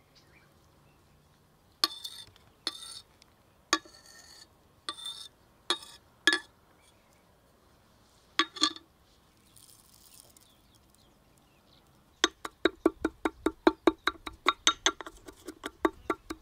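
A steel cleaver knocking and scraping on a granite slab while diced onion is gathered, a handful of separate strikes. After a pause comes a marble pestle pounding in a marble mortar: a fast run of clinking strikes, about five a second.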